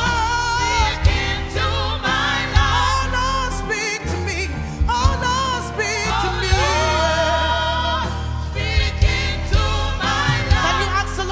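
Live gospel worship music: a lead voice sings long notes with wide vibrato over a band with steady bass and drum hits.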